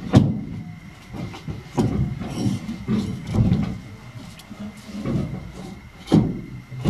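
Wooden 2x4 cage panel and its steel L brackets being fitted onto a wooden frame in a pickup bed: about six irregular knocks and thuds of lumber and metal bracket against wood.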